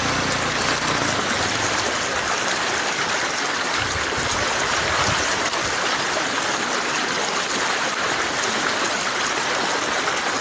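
Floodwater rushing across a street: a steady, even rush of running water.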